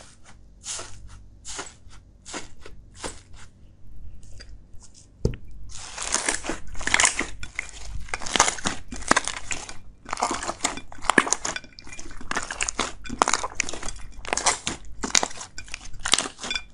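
White aerated crispy slime being pressed and kneaded by hand, crackling and popping crisply. At first there are separate crackles, then a soft thump about five seconds in, after which it crackles densely with each squeeze, two or three times a second.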